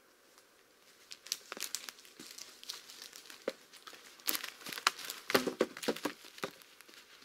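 Footsteps crunching over dry pine needles and twigs, then a pine log laid onto a pile of logs, giving a few wooden knocks a little after the middle, the loudest sounds here.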